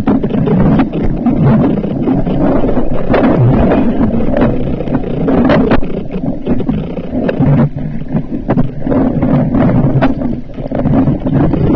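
Muffled, continuous water rumble picked up through a camera's underwater housing, with scattered short clicks and knocks.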